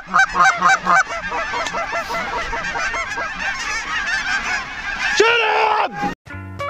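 Large flock of snow geese calling overhead in a dense chorus of high, yelping honks, with several loud calls close by in the first second. About five seconds in, a long drawn-out shout rises over the flock, then the sound cuts off.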